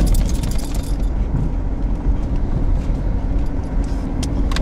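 A car being driven: a steady low engine and road rumble, with a few light clicks near the start and just before the end.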